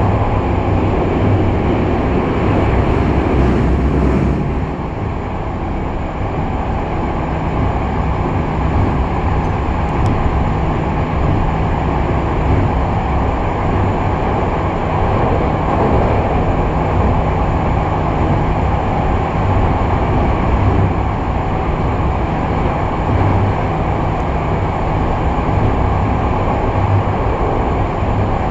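Kobe Municipal Subway 6000-series train running through a tunnel, heard from inside the car: a steady rumble of wheels on rail and running gear, dipping slightly about four seconds in.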